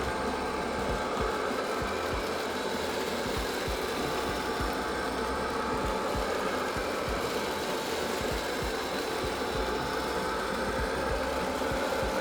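Deenkee D40 robot vacuum running in spot-cleaning mode: a steady whir of the suction fan and brushes with a thin whine over it.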